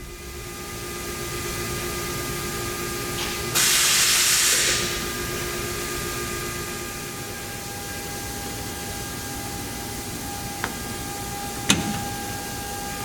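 Ingersoll Rand UP6-10-125 10 HP rotary screw air compressor running with a steady hum and hiss. About three and a half seconds in, a loud burst of hissing air lasts about a second, and two sharp clicks come near the end.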